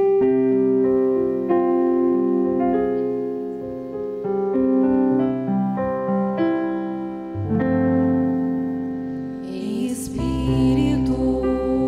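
Slow instrumental background music: held keyboard chords, changing every second or two, with a deeper bass coming in about ten seconds in.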